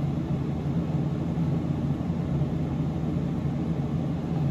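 Steady low hum and rush of a running ceiling fan, unchanging throughout.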